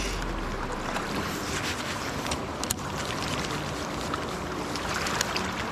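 Steady rush of a swift river running over shallow stones, with a few sharp clicks, the clearest about halfway through and another near the end.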